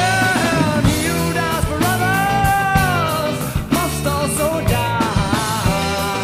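Rock band recording: a singer carries a melody over drums and a full band mix, holding one long, arching note about two seconds in.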